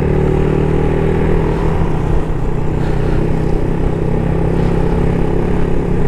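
Honda Wave110i's small single-cylinder four-stroke engine running steadily while the motorcycle is ridden, with wind and road noise.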